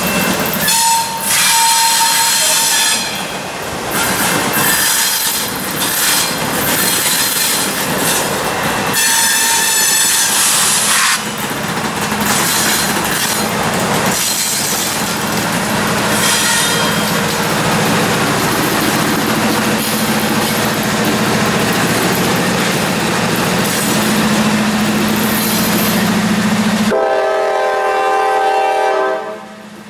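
A freight train's horn sounds several long blasts for a grade crossing in the first ten seconds or so. Then the lead Norfolk Southern GE Dash 9 diesel locomotives pass close by with a steady engine drone. Near the end the engine noise drops away and a ringing, squealing tone from the cars takes over.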